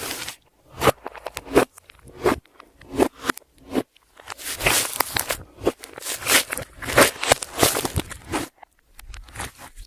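Clear slime being squished and kneaded by hand: irregular sticky pops, crackles and squelches, coming thicker and faster in the second half, then easing off near the end.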